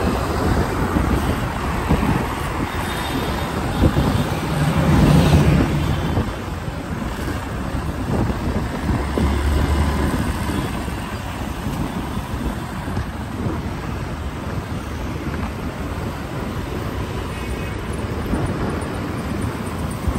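Road traffic noise heard on the move: wind buffeting the microphone over the steady rumble of engines and tyres. A louder rumble swells about four to six seconds in.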